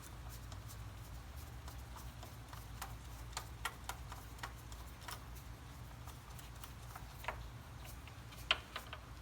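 Scattered light metallic clicks and taps as the A/C compressor clutch plate's centre bolt is started by hand, with a sharper click near the end, over a steady low hum.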